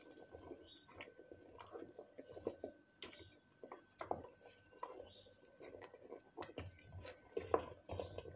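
Wooden spoon stirring a thick tomato stew in a stainless steel pot: faint wet squelching with irregular soft knocks of the spoon against the pot.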